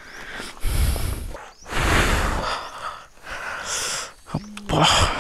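A person breathing hard and out of breath, a series of heavy breaths of about a second each, with a short grunt near the end.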